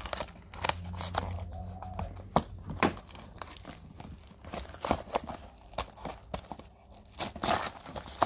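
Clear plastic wrap on a cardboard toy box being slit with a pocket knife, then torn and crinkled off by hand, in scattered sharp crackles and snaps, the loudest about two to three seconds in.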